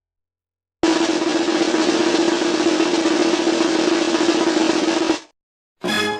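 Snare drum roll sound effect: a fast, continuous roll that lasts about four seconds and then stops. A different, pitched musical sound starts just before the end.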